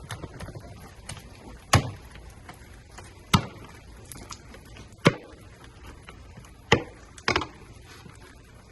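Alaska king crab being chopped into pieces: five sharp chops, about a second and a half apart, the last two close together.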